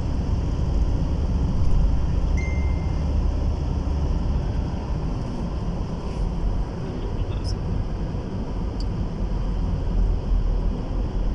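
Steady low rumble of engine, tyre and wind noise heard inside a car cruising at highway speed.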